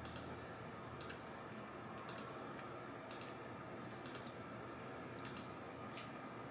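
Faint room tone with soft, light clicks about once a second.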